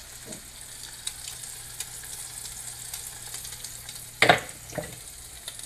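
Small sea robin fillets frying in butter in a pan, a steady sizzle with light crackles. About four seconds in there is a short, loud clatter, with a smaller one just after.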